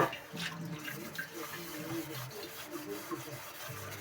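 Water running from a tap while a frying pan is washed and scrubbed at a sink.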